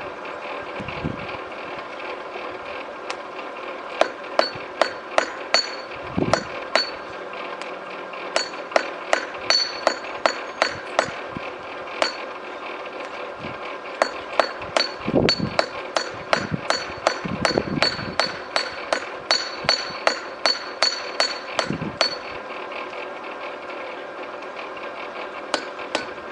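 Hand hammer striking hot high-carbon steel on a small anvil made from a section of rail, drawing the bar out thin. The blows come in runs of about two a second with short pauses, each ringing high, over a steady mechanical hum.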